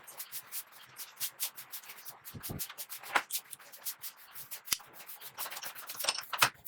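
Hand sanding: quick, irregular rubbing strokes, several a second, with a few louder strokes near the middle and end.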